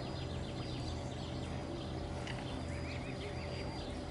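Mute swan cygnets peeping: a fast run of short high chirps about a second in, then a series of arched chirps in the middle, over a steady low rumble.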